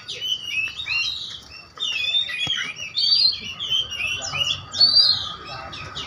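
Caged songbirds chirping and warbling together in a dense run of quick, overlapping chirps and whistles, with a brief lull a little under two seconds in.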